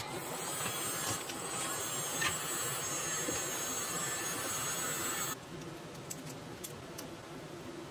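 Black+Decker heat gun blowing hot air, a steady hiss, as it shrinks PVC wrap onto a battery pack; it stops abruptly about five seconds in. Then a few faint snips of scissors trimming the wrap.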